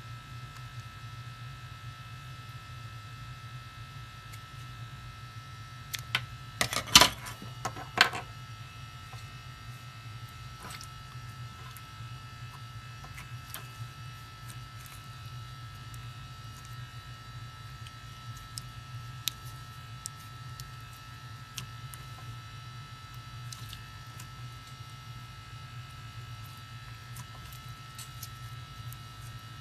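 A steady low electrical buzz, with a cluster of loud sharp clicks and knocks about six to eight seconds in and a few faint ticks after.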